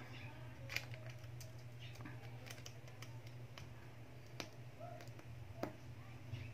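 Scattered light clicks and taps as a phone's small charging board is fitted and pressed into place by hand, over a steady low hum.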